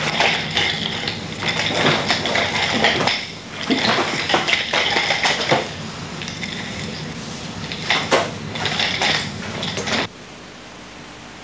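Nunchaku chain rattling and clinking in quick, irregular clusters as the weapon is swung through fast strikes. The rattle cuts off abruptly about ten seconds in, leaving a steady hiss.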